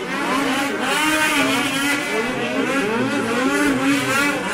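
Several snowmobile engines revving hard, overlapping, their pitch repeatedly rising and falling as the sleds accelerate and back off.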